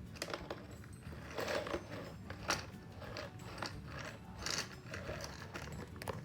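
Toys being handled, giving irregular small clicks, rattles and rustles, a few of them sharper than the rest.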